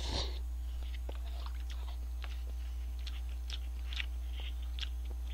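A man slurps in a mouthful of instant cup noodles at the start, then chews with soft, wet clicks close to the microphone. A steady low hum runs underneath.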